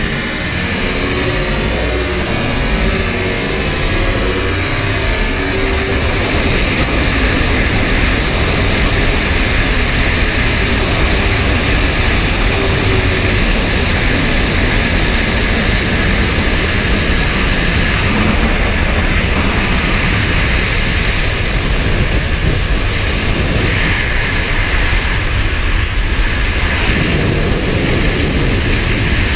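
Steady wind rush over the onboard microphone of a 2008 Honda CBR1000RR sportbike at high speed, with its inline-four engine running underneath.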